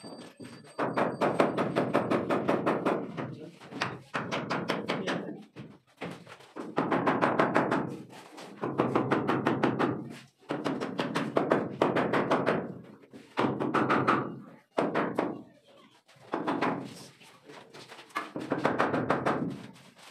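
A hand tool rasping on wood in repeated strokes, roughly one every one and a half to two seconds, consistent with hand-sawing or rasping a wooden door frame.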